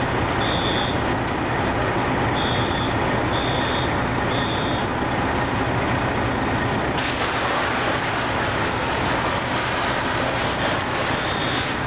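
Fire trucks' engines running steadily, with a reversing alarm beeping in short runs near the start and again near the end. A hiss comes in about seven seconds in.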